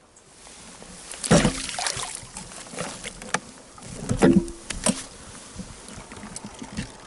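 Bumps, rustles and water splashes as an angler in an inflatable boat handles a rainbow trout and leans over the side to let it go. There are two loudest clusters, about a second in and around four seconds, with a brief squeak in the second one and lighter knocks in between.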